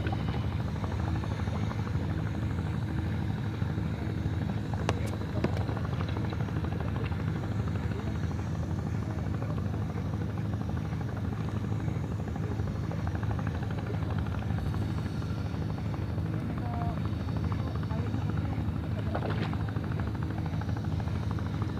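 Boat engine running steadily, an even low drone with a couple of faint clicks over it.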